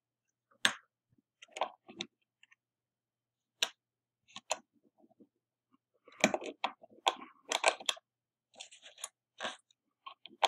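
Small metal clicks and rattles of the brass levers, spacers and latch being handled inside an opened Yale three-lever mortice sashlock case: a few scattered clicks, then a busier run of clicking and rattling from about six seconds in.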